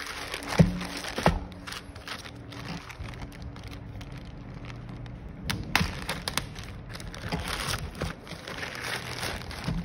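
Plastic courier mailer bag handled and torn open by hand: two sharp knocks about half a second and a second and a half in, then crinkling and ripping of the thin plastic, busiest in the second half.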